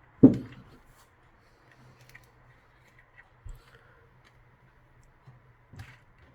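Hand-handling knocks and clicks while a Samsung Galaxy Folder 2 flip phone is disassembled: one sharp knock about a quarter second in, then a few softer taps and small clicks of plastic parts and tools.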